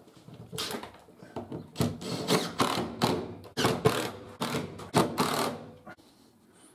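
Cordless drill-driver run in a string of short bursts, driving screws to fix wooden glue blocks under the stair treads. The bursts stop about six seconds in.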